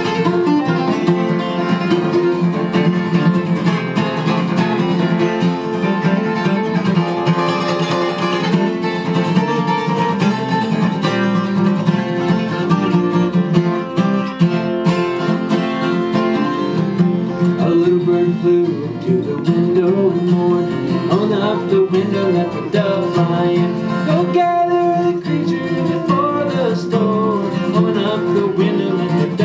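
Two steel-string acoustic guitars playing a song together, picked notes over a steady strummed accompaniment. In the later part a man's singing voice comes in over the guitars.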